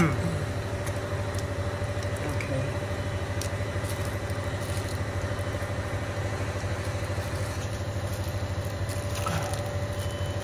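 Steady low machine hum, with a single knock at the start and light metal clicks from a motorcycle drive chain being handled and wiped at its rear sprocket.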